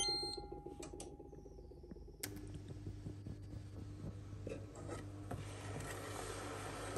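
A steel pot rings and fades after a clink, with a few short high beeps at the start. About two seconds in, an induction hob switches back on with a click and then hums steadily, while a spatula scrapes and taps lightly in the pot.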